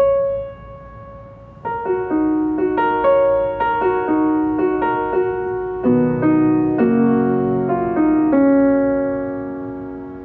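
Solo grand piano playing a slow, gentle piece. A single held note opens it, a melody over chords comes in about two seconds in, fuller low chords sound around the middle, and it settles on a long held chord that slowly fades.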